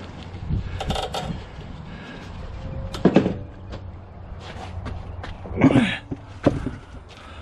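Several sharp metal knocks and clunks as a Kohler Courage lawn tractor engine is lifted off the riding mower's frame and carried, with a man's straining grunt under the weight about two thirds of the way through.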